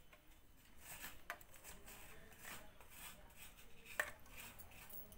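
Hand squeezing and mixing milk-soaked semolina in a steel bowl: faint wet squishing, with a few light clicks, the sharpest about four seconds in.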